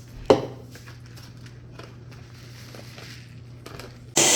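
A sharp knock early on and faint clicks of handling kitchenware, then near the end an electric blender switches on with a loud whir as soaked rice is blended with warm milk.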